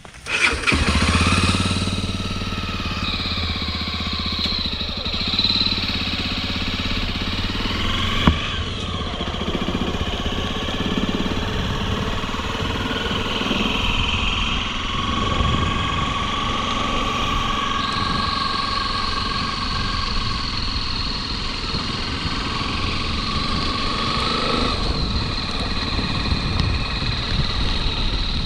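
Motorcycle engine running under a steady noise haze, its pitch shifting several times as the revs change.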